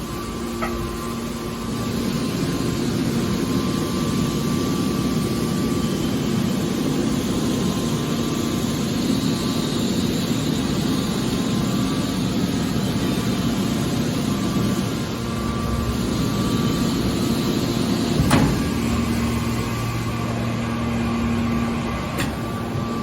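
Hydraulic scrap metal baler running: a steady hum of motor and pump, with a single sharp knock about eighteen seconds in.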